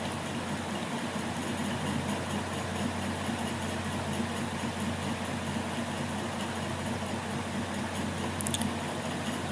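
Steady low mechanical hum over a faint hiss, with a couple of light clicks near the end.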